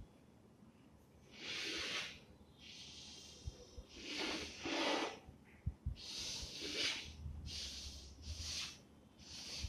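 Chalk scraping on a blackboard as lines are drawn, in a string of short strokes with brief pauses between, and a couple of light knocks.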